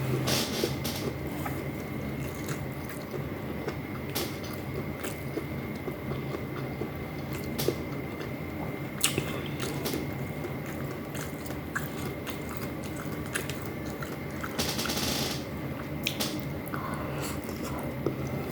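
Close-up mouth sounds of someone chewing and biting through a meal of vinegar-stewed fish and rice, with many small scattered clicks and a short louder rustle about fifteen seconds in.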